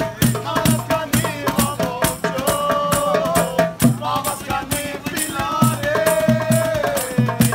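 Street band music: conga drums and a box drum beating a steady rhythm under strummed acoustic guitar, with a melody of long held, wavering notes and a shaker-like rattle.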